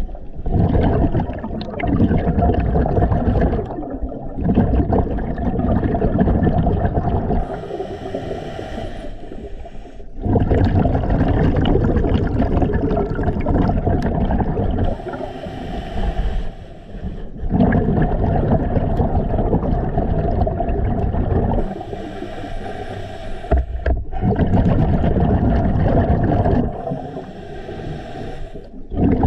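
A scuba diver breathing underwater through a regulator: long exhalations of bubbles rumbling and gurgling, alternating with short hissing inhalations, about five breaths in a slow, even rhythm.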